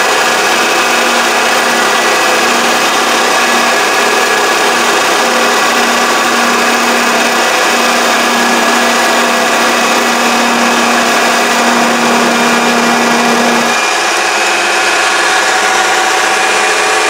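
Mini lathe running at about 2000 RPM, a steady high machine whine with a turning tool cutting down the diameter of the workpiece. Its low hum stops and the sound changes about 14 seconds in.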